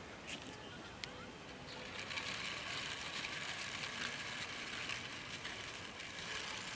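Plastic wheels of a small six-wheeled toy truck rolling along a painted concrete wall top, pushed by hand: a steady, grainy rolling noise with fine clicks, starting about two seconds in.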